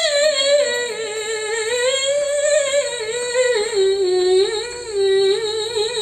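A woman's voice chanting Quran recitation in the melodic tilawah style, holding one long ornamented melisma on the phrase 'la-ẓulmun ʿaẓīm'. The note wavers with quick turns and steps down in pitch about halfway through.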